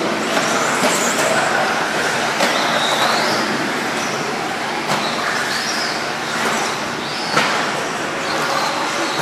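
Electric 2WD RC buggies racing on an indoor dirt track: high motor whines rising and falling as the cars speed up and slow down, over a steady noise, with a few sharp knocks.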